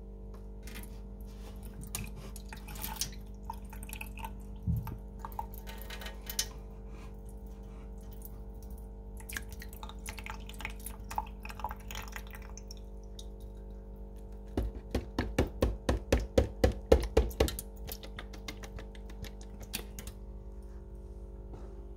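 Curdled, gone-off milk glugging and plopping out of a plastic milk bottle into a stainless steel sink: a quick run of about fifteen glugs over roughly three seconds, past the middle. Before it, scattered small drips and clicks, with a steady low hum throughout.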